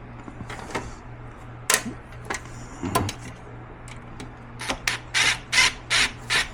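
A hand ratchet driving in a seat-plate screw on a power wheelchair: a few scattered clicks and knocks, then, about two-thirds of the way in, a regular series of short ratcheting strokes, about three a second.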